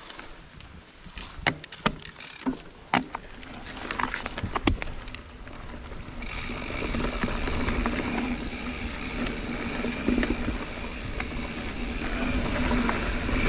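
Mountain bike riding over a dirt trail: sharp knocks and rattles from rough ground for the first few seconds, then a steady rush of tyre and wind noise that grows louder toward the end.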